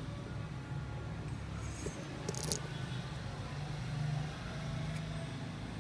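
Steady low mechanical hum, with a few short light metallic clinks as tools or parts are handled, the sharpest about two and a half seconds in and another near five seconds.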